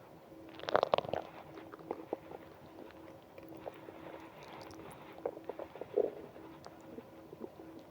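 Stomach growling: gurgling, squelching rumbles from a stomach, with a louder burst about a second in, another around six seconds in, and scattered small pops and clicks between.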